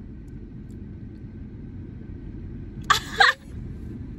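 Steady low road rumble inside a moving car's cabin. About three seconds in, a person gives a short, two-part vocal outburst, the loudest sound.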